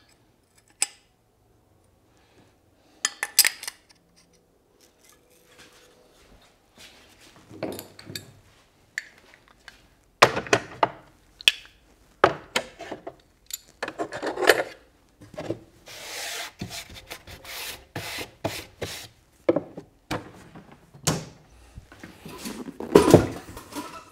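Hand tools being handled and put away and a workbench being cleared: scattered clicks and knocks of wood and metal, with short stretches of rubbing and a longer rubbing stretch past the middle.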